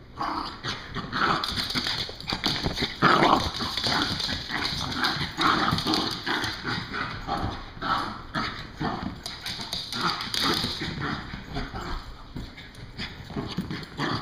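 Two puppies play-fighting, making quick, irregular bursts of growls and yaps throughout, loudest about three seconds in.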